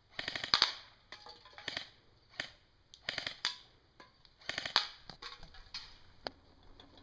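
Airsoft G36 rifle firing on full auto in several short bursts of rapid sharp clicks, one burst about every second.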